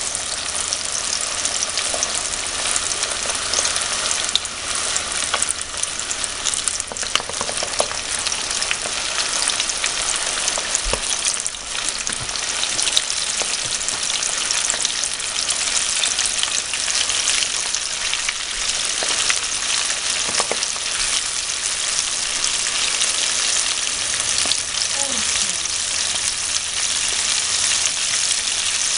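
Flour-coated chicken drumsticks deep-frying in hot oil at medium heat: a steady sizzling hiss with scattered crackles and pops.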